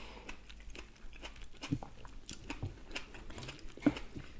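Close-miked biting and chewing of soft fried toast topped with fried egg: wet mouth sounds with scattered small clicks and smacks, and a sharper click a little before the end.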